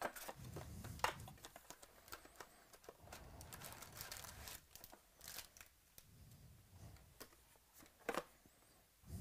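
Cardboard hobby box of Panini Prizm football cards being opened and its foil-wrapped packs pulled out and stacked. Foil wrappers rustle and crinkle, with light taps and clicks of cardboard and packs against the table, one sharp tap near the end.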